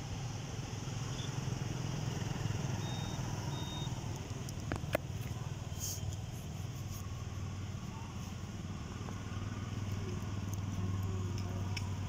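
A motor vehicle engine running steadily nearby, heard as a low hum that grows a little louder near the end, with a sharp click about five seconds in.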